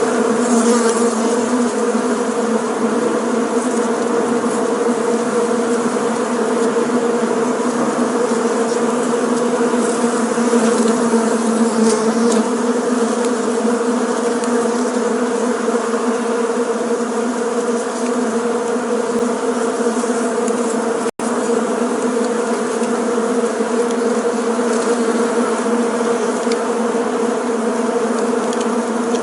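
Bees buzzing in a steady, continuous drone of many wings together. The sound cuts out for an instant about two-thirds of the way through.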